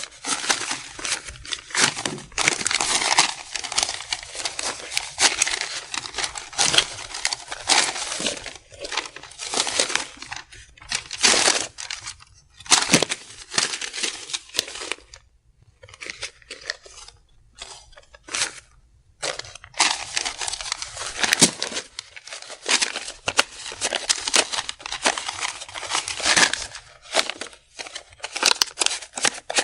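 Cash being sorted by hand: paper banknotes rustling and crinkling, with scattered small clicks and clinks of coins. About halfway through the rustling drops to a few sparse clicks for several seconds, then the dense handling starts again.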